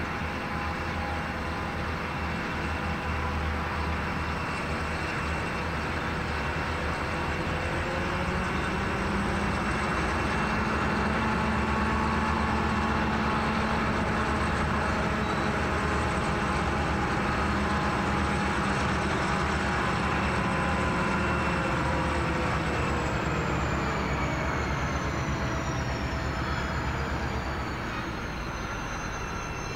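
Diesel-electric freight locomotives (Pacific National BL32 leading XR557 and X48) running as the grain train approaches and slows, a steady engine hum that grows louder as they draw near and eases off near the end. About two-thirds of the way through, a high whine glides down in pitch as the train slows for its stop.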